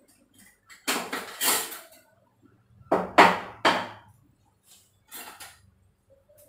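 Kitchen dishes and utensils clattering and knocking together in a few loud bursts: two about a second in, three more around the three-second mark, then fainter rattles.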